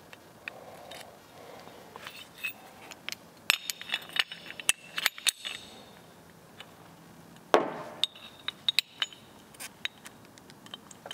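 Factor 55 aluminium winch hook being fitted onto the eye of a synthetic winch rope: scattered metal clicks and clinks as the pin and hook are worked, with one louder snap about two-thirds of the way through.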